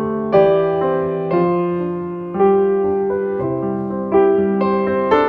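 Background music: slow, gentle piano, with chords struck about once a second and left to ring and fade.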